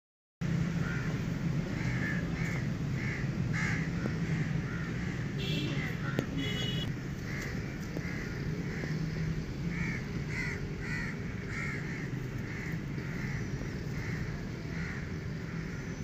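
A bird calling over and over, short calls about twice a second, with a steady low hum underneath.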